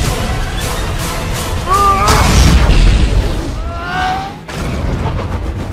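Dramatic action-film music with deep booms, the heaviest about two to three seconds in.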